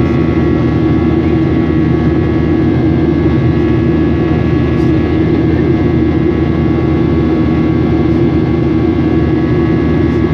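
Steady cabin noise of a Boeing 737 in flight: the jet engines and airflow make a deep, even drone with several thin, steady whining tones above it.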